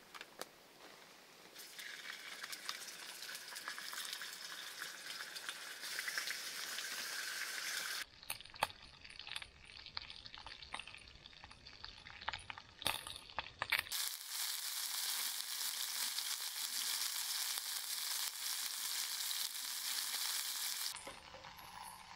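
Food sizzling as it fries in a pan over a campfire, in two long stretches of steady sizzle. A stretch of scattered clicks and crackles breaks it up in the middle.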